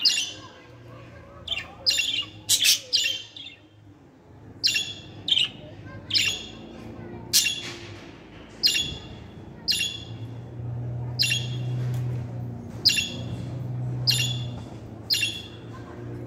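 Budgerigar giving a string of short, sharp chirping calls at irregular intervals, sometimes two or three in quick succession.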